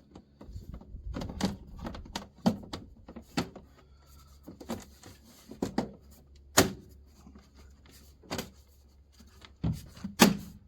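Irregular sharp clicks and knocks of a homemade gas-can fitting being handled and pressed into place, some louder about six and ten seconds in.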